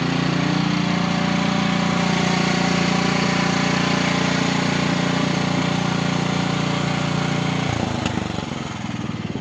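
Vehicle engine running steadily, rising slightly in pitch in the first second. About eight seconds in the hum drops away and gives way to a rapid, regular throbbing.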